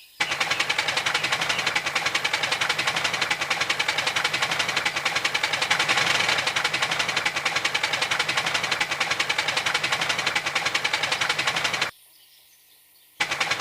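Steam locomotive sound effect: rapid, even chuffing at a steady beat. It cuts out for about a second near the end, then starts again.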